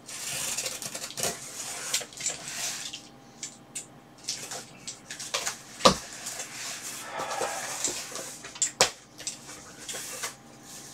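A box cutter slicing through packing tape and cardboard on a shipping box, with scratchy rasps as the blade drags along the seams and the cardboard flaps scrape open. A couple of sharp knocks stand out, one about six seconds in and another about three seconds later.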